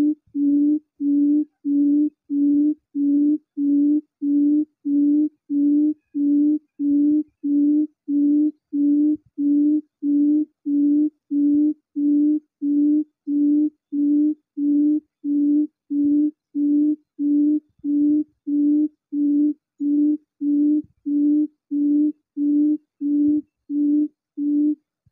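Recorded quail call played from a Bluetooth speaker as a trap lure: one low hooting note repeated evenly, about three times every two seconds, stopping just before the end.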